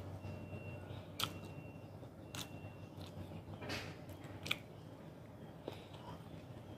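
Close-up crunching and chewing of vegetables from a broccoli and cauliflower mix, with a sharp crunch about once a second.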